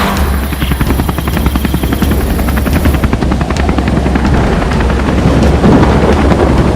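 Helicopter sound effect: a rotor chopping fast and evenly over a steady low engine drone.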